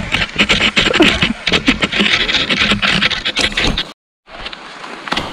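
Cross-country skis gliding and scraping along a groomed classic track on snow, with a rapid run of crunching clicks from the strides. The sound breaks off sharply about four seconds in, then the same scraping resumes more quietly.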